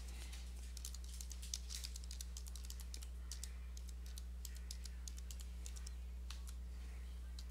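Computer keyboard being typed on: quick key clicks in irregular runs as a terminal command is entered. A steady low hum lies underneath.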